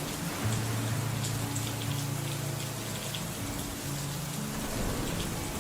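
Steady rain pattering, a rain-sound layer laid over slowed-down instrumental music holding sustained low chords that change every second or so.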